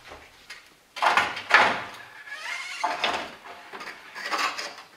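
Car radiator being worked up and out of its mounts in the engine bay, its tanks and frame scraping and knocking against the surrounding parts in a handful of irregular bursts, the loudest about a second and a half in.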